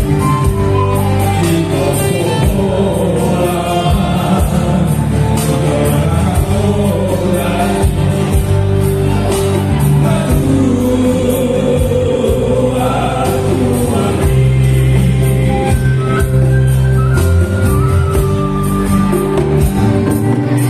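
Male vocal group singing a song together in harmony through microphones, backed by a live band with guitar.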